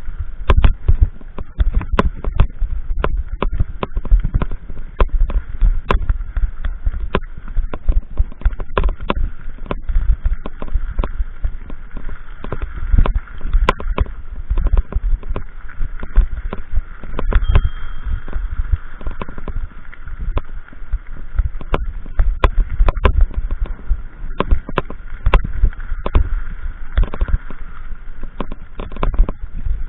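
Footsteps on a railway track, picked up by an action camera's microphone as many irregular knocks and low thumps, with a faint steady hum underneath.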